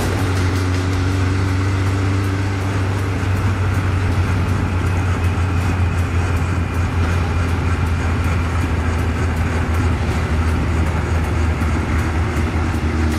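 Honda CB1100SF X11's inline-four engine running at a steady cruise while the motorcycle rides along, with wind rushing over the microphone.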